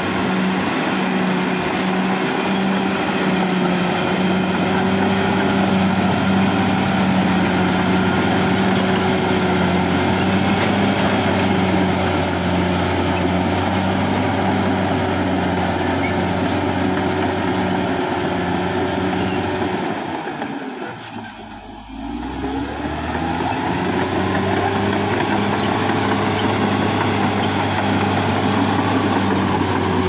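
Caterpillar D6R XL crawler bulldozer's diesel engine running steadily as the machine pushes dirt. About two-thirds of the way through, the engine note drops away for a second or two, then climbs back up.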